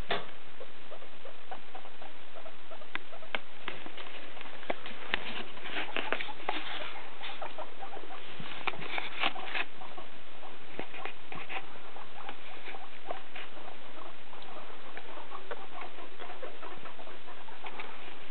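Guinea pigs moving about in a cage, small scattered clicks and rustles of paws in hay and fleece, busiest around the middle, over a steady hiss.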